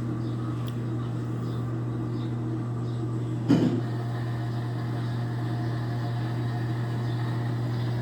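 Washing machine's newly replaced drain pump running with a steady hum as it pumps the water out, working again after the old pump burnt out. A brief knock about three and a half seconds in.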